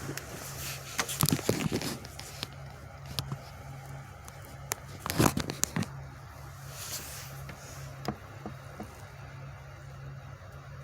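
Scattered bangs and clattering knocks in two short clusters, about a second in and again near the middle, over a steady low hum.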